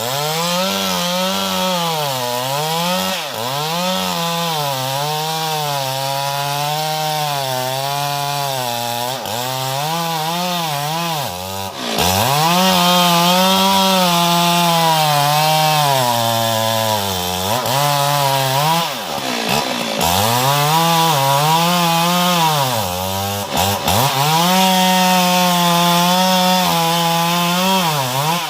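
Stihl MS 382 two-stroke chainsaw cutting wood, its engine speed rising and sagging continually under load, with several brief drops in pitch where it eases off and revs up again.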